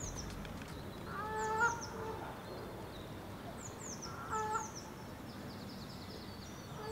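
Outdoor lakeside ambience: a goose honks twice, about a second in and again about four seconds in, while small birds chirp with quick, high, falling notes throughout.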